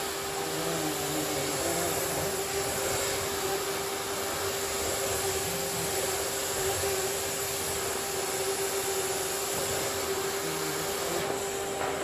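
Miele vacuum cleaner running steadily, a constant motor whine over a wide rush of suction noise, with small shifts in the low end as the nozzle moves.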